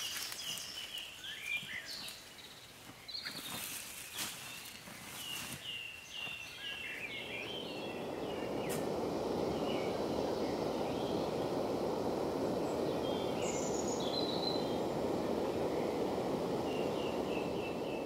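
A portable gas camping stove burner hissing steadily under a metal pot. It builds up about a third of the way in and then holds. Before it comes the rustle and knock of gear being handled, with a songbird singing runs of short repeated notes.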